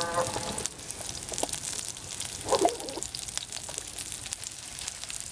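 Chopped chilies and spices frying in oil in a pan: a steady sizzle with scattered crackles. A brief voice-like sound about two and a half seconds in.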